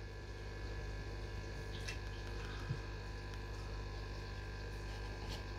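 Steady electrical mains hum, with a few faint small ticks about two seconds in, near the middle and near the end.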